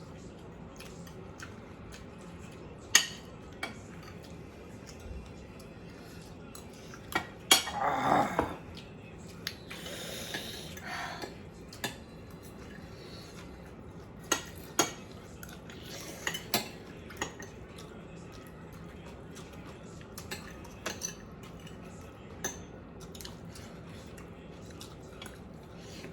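Eating utensils clinking and scraping on a plate while eating. Sharp clinks are scattered through, with a longer, louder scraping stretch about seven to eight seconds in and another around ten seconds.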